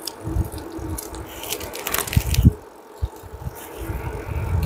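Wind buffeting the microphone in uneven gusts while riding a bicycle fast downhill, with a short rush of noise about two seconds in and a few light clicks.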